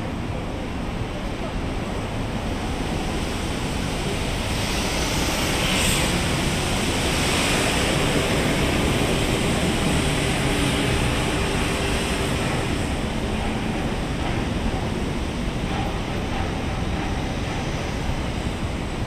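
Road traffic on a multi-lane road: a steady wash of tyre and engine noise. It swells for several seconds in the middle as a group of vehicles passes close by, then eases off.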